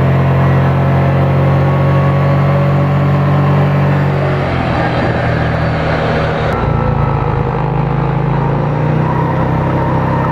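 The 500 cc petrol engine of a child-sized sports car replica running as the car drives, its note shifting about halfway through.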